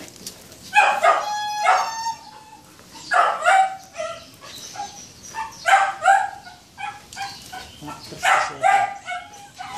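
Dachshund yelping and whining in about four loud, high-pitched bursts, a dog's distress calls while held for mating.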